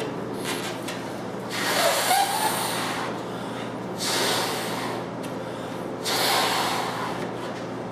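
A person blowing up a large balloon by mouth: three long, heavy breaths about two seconds apart, each lasting a second or so.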